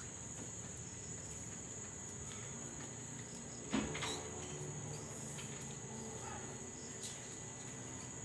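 Crickets trilling steadily in the background, with a single short knock a little under four seconds in.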